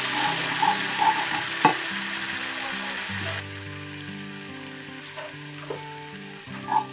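Beetroot and tomato puree sizzling in a cast iron pan while a wooden spatula stirs it. There is a sharp tap about one and a half seconds in, and the sizzle drops suddenly about halfway through.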